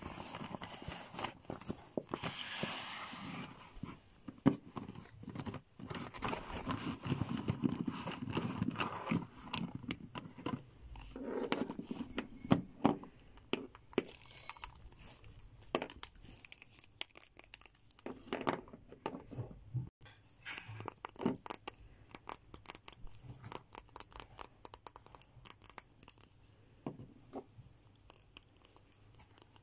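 Fingers rustling and scratching a black fabric case, then double-ended plastic markers being handled, with many short plastic clicks and taps.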